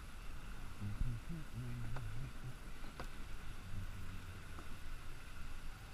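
Kayak paddling: paddle strokes in the water, with three sharp knocks about a second apart, under a faint, low, intermittent hum.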